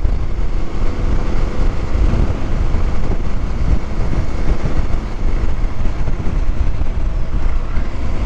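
Motorcycle riding with steady wind rumble on a handlebar-mounted camera's microphone, the engine running faintly beneath it.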